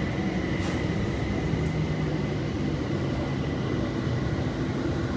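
BTS Skytrain car running along the elevated line, heard from inside the carriage: a steady rumble with a faint steady high tone over it.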